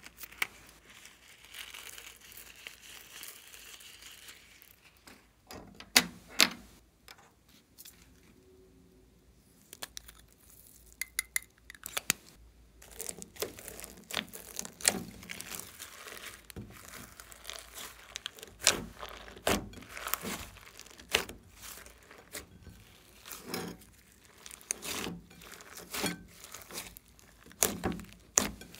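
Slime full of sequins and glitter being kneaded and squished by hand in a glass bowl, with many short, sticky pops and clicks. Near the start, a cut rubber balloon crinkles as it is squeezed empty.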